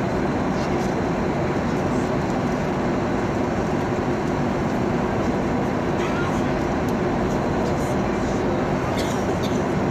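Airliner cabin noise in flight: a steady drone of engines and rushing air with a low hum, and a few faint ticks in the second half.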